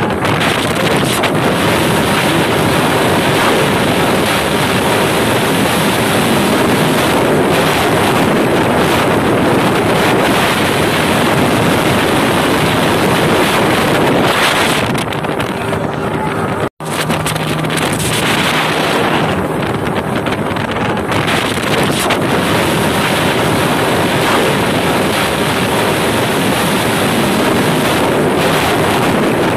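Small motorboat under way: its engine and rushing water under heavy wind noise on the microphone, steady and loud, with a brief dropout about 17 seconds in.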